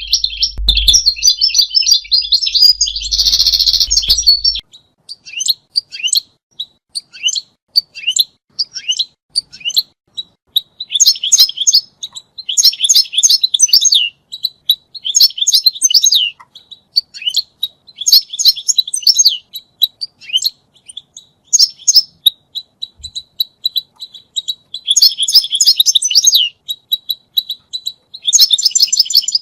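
European goldfinch song: fast, tinkling twitters and chirps delivered in bursts of a second or two, separated by short pauses. The first few seconds are a denser run of song.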